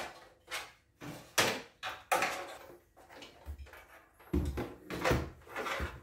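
Cooler Master MasterBox MB520 PC case being handled and moved on a table: a run of short clunks and knocks, then heavier, deeper thumps from about four seconds in.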